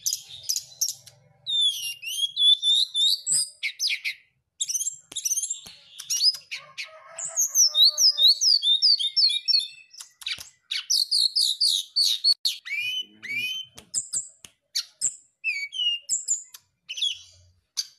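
Brown-chested jungle flycatcher singing a fast, varied song of quick high sweeping whistles and sharp clicking notes, in bursts with short pauses between them. This is the kind of song keepers play to provoke rival males into answering.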